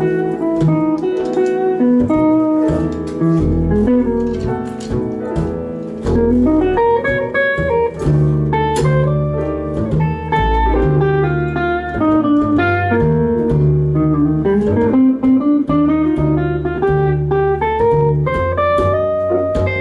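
A band playing a blues-jazz tune in a sound-check run-through, an electric guitar carrying the melody over a bass line and drums.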